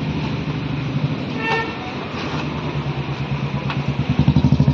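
A motor vehicle's engine running steadily, with a short horn toot about a second and a half in. Near the end the engine sound grows louder and takes on a quick pulsing beat.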